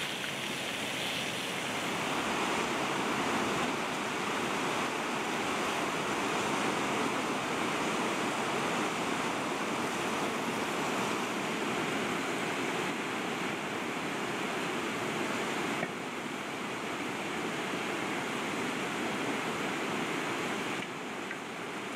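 Fast mountain river rushing over stones: a steady, unbroken rush of white water.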